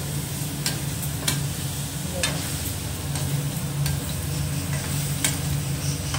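Potatoes and fenugreek leaves sizzling as they fry in a metal kadhai, stirred with a metal spatula that scrapes the pan and clicks against it a few times, over a steady low hum.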